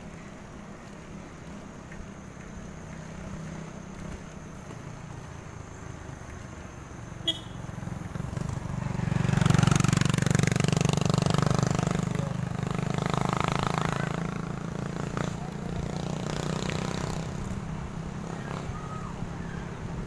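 Steady wind rumble on the microphone of a moving bicycle, with a motorcycle passing close alongside: its engine swells loud about nine seconds in and fades over the next several seconds. A single sharp click about seven seconds in.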